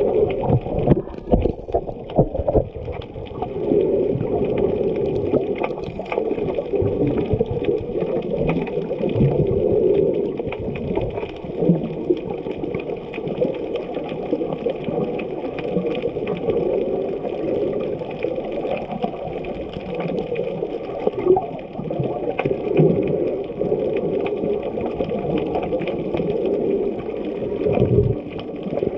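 Muffled sloshing and gurgling of water around a camera held underwater while snorkeling, dull and cut off at the top, with many small irregular knocks and taps throughout.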